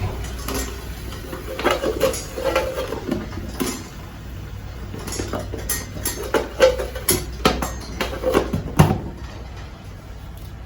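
Metal cookware and utensils clinking and knocking against a mess tin in irregular strikes, some briefly ringing, over a steady low hum. The knocks stop about nine seconds in.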